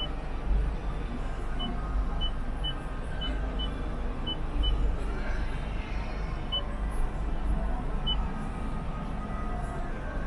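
Steady background noise with a low rumble, over which short high-pitched electronic beeps sound about ten times at uneven intervals, bunched in the first half.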